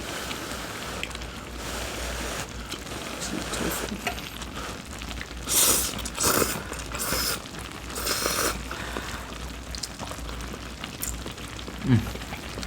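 Pot of budae jjigae (Korean army stew) bubbling at a steady crackling simmer. About halfway through, four short, loud noisy bursts come close together.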